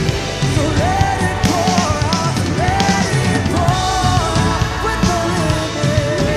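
Band music with drums and bass under a singing voice carrying a melody in long held notes.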